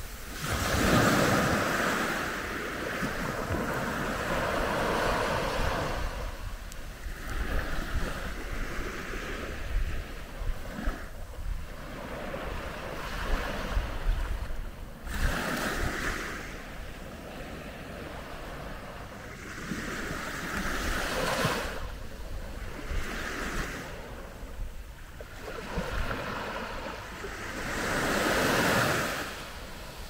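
Calm Mediterranean Sea waves breaking gently on the shore, a new wave surging in and washing back every few seconds.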